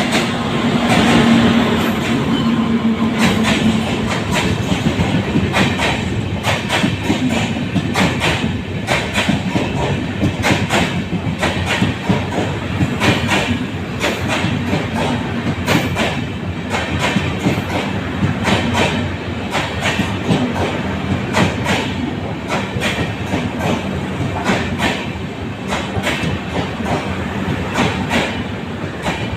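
A train running past on the rails, its wheels clattering in a steady stream of knocks over the rail joints. There is a low hum in the first few seconds.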